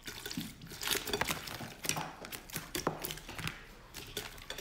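Soy-based sauce with chopped chilli and green pepper poured from a glass bowl over a plate of raw shrimp, the liquid splashing and dripping, with many irregular small clicks and taps.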